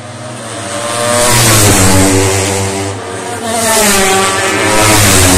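Racing motorcycle engines at high revs, growing louder as the bikes approach, with the engine note rising and falling; the sound eases about three seconds in, then swells again.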